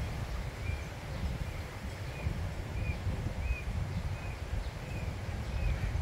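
A bird giving short chirps over and over, about one every two-thirds of a second, over a steady low rumble.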